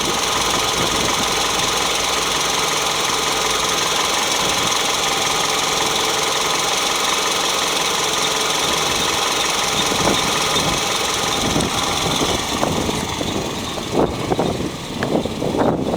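2003 Toyota Tarago's 2.4-litre four-cylinder engine idling steadily. After about twelve seconds the steady running gives way to uneven, fluctuating sounds.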